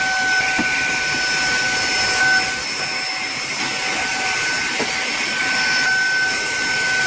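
SAKAKI cordless handheld vacuum cleaner running steadily: a constant rush of air with a high, unchanging motor whine.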